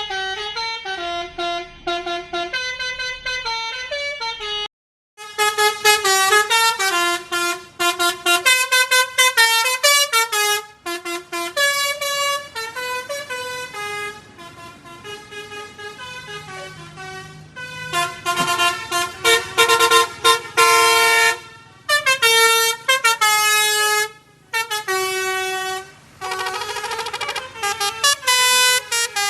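Tunggal Jaya bus's telolet horn, a set of multi-tone air horns, playing quick melodies note after note. There is a short break about five seconds in and a few brief pauses later on.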